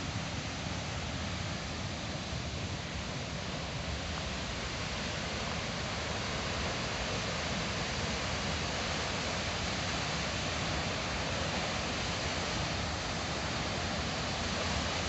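Steady rush of fast-flowing water, running high and rough after days of bad weather.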